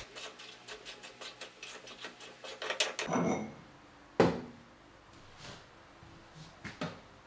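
Brass die ring being unscrewed by hand from a pasta extruder's head, its threads giving a quick run of small metallic clicks and grinding for about three seconds. A sharp knock follows a little after four seconds in, and a lighter one near the end, as metal parts and tools are set down on a steel table.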